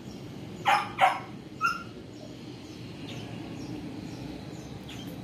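A dog barking three times in quick succession, about a second in, over faint high bird chirps.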